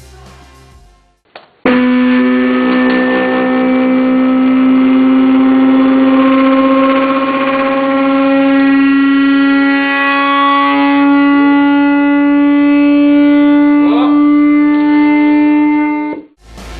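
A car subwoofer playing a steady test tone from a frequency generator, with many overtones, to vibrate a styrene sheet. It starts suddenly, climbs slowly in pitch from about 250 to 300 Hz, and cuts off near the end.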